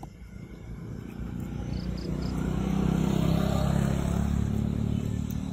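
A motor vehicle's engine passing close by. It grows louder over about three seconds, then falls away near the end.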